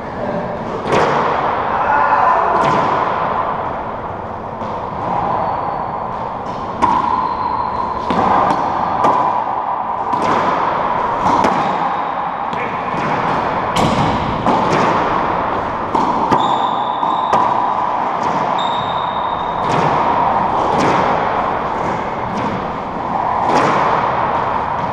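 Racquetball rally in an enclosed court: the hollow rubber ball cracking off racquets, walls and floor about once a second, each hit echoing off the walls, with short squeaks of sneakers on the hardwood floor now and then.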